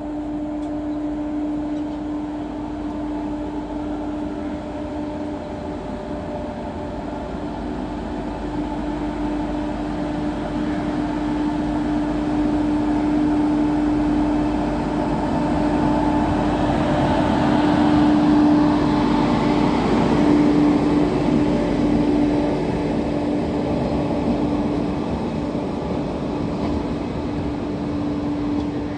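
A WAP-7 electric locomotive and its passenger coaches run through a station. The rumble of wheels on rail builds as the engine nears and is loudest about two-thirds of the way in, then carries on as the coaches pass. A steady hum sounds underneath throughout.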